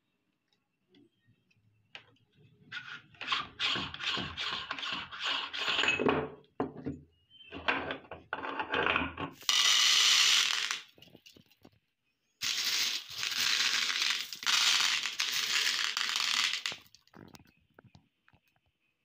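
Glass marbles clicking and clattering against each other and a plate as a hand stirs and scoops through them, in several spells of a few seconds each with short pauses between.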